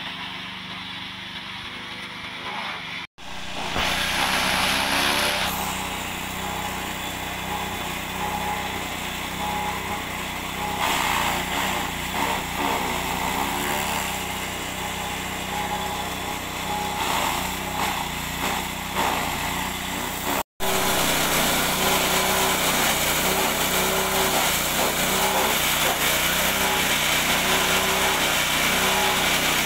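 Small single-cylinder petrol engine running steadily, driving a forage chopper as fresh green grass is fed in and shredded, with a crackling chopping noise over the engine. Quieter for the first few seconds, louder and steadier in the last third.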